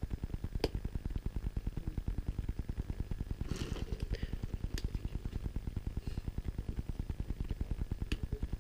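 A motor or engine running steadily with a fast, even low pulse, with a few sharp metallic clicks and a brief hiss over it.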